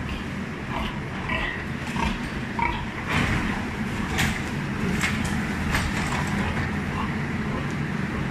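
Group-housed pregnant sows grunting with short grunts over a steady low rumble, with several sharp knocks in the middle.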